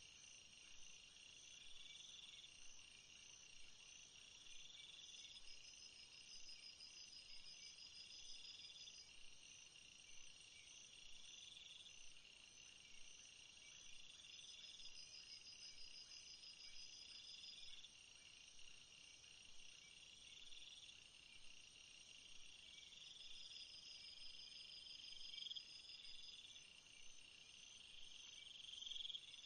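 Faint late-night jungle ambience: a dense, steady chorus of high-pitched insects. A shrill call repeats about every three seconds, and a pulsing trill comes and goes over it.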